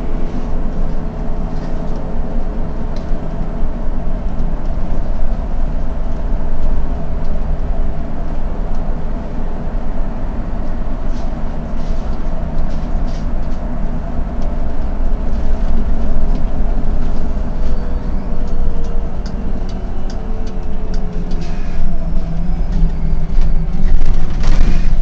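Autosan M12LF CNG city bus heard from the driver's seat while driving: a steady low engine drone and road noise. A whine slides down in pitch as the bus slows, with scattered rattles and clicks. There is a short loud hiss near the end as it pulls up to a stop.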